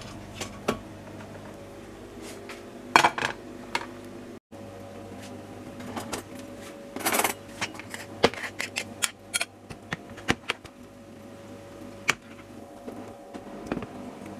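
Kitchen utensils clinking, tapping and scraping against a pan and a glass plate as rice and tomato sauce are dished up, a wooden spoon and fork at work. A steady low hum runs underneath.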